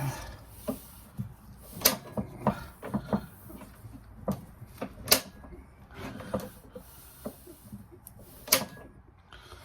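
Irregular clicks, taps and knocks of hand tools and small engine parts being handled, with three sharper clacks about two, five and eight and a half seconds in.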